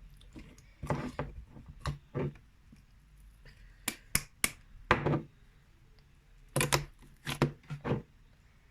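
Slime being handled and pressed into a jar: scattered short squelches and taps, in a few clusters with pauses between them.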